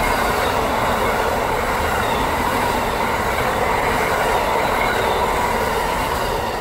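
Amtrak Northeast Regional's Amfleet passenger coaches passing at speed: a loud, steady rush of steel wheels on rail with some clickety-clack, easing off near the end as the last car goes by.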